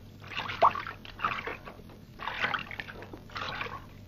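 Water splashing and lapping around a wooden canoe, in short splashes about once a second.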